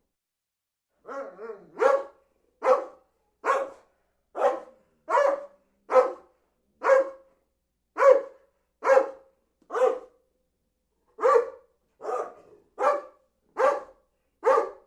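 A dog barking over and over in single sharp barks, about one every second, with a brief pause about two-thirds of the way through.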